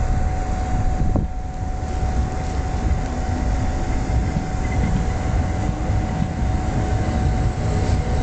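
Class 377 Electrostar electric multiple unit running slowly past along the platform: a continuous rumble of wheels on the rails with a thin steady whine over it.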